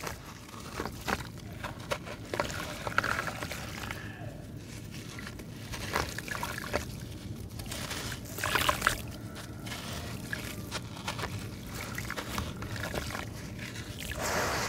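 Wet sand-cement chunks crumbled by hand into a tub of water: gritty crackling and trickling of grains, with light sloshing. The crackling is louder in a burst a little past halfway, and the sound grows denser near the end as the hands work the grit under the water.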